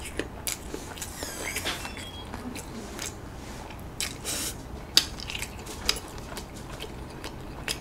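Close-miked chewing of barbecued chicken, with wet mouth smacks and scattered small clicks.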